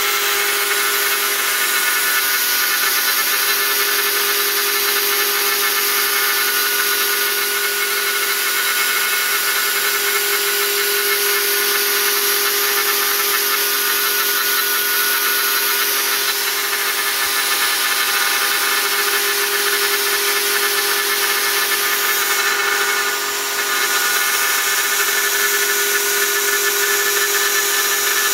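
Router with a two-flute bit running at full speed in a shop-built slot mortiser, milling aluminum angle: a steady high motor whine over a dense cutting hiss, which dips briefly about three-quarters through.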